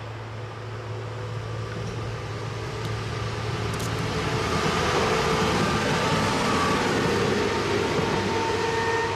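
Diesel locomotive of a mineral freight train accelerating from a standstill as it passes: a steady engine drone that grows louder over the first five seconds and stays at its loudest until near the end.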